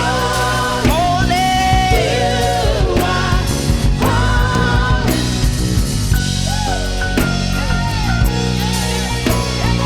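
Worship band music: a singer holding long, wordless notes over drums, bass and guitar, the voice easing off about halfway through while the band plays on.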